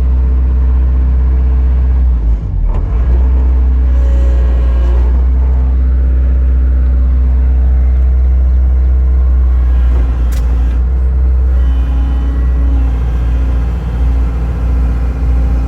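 Kobelco excavator's diesel engine running steadily while the boom's main hydraulic cylinder is worked, the engine note dipping briefly about two and a half seconds in, with a sharp click near the end.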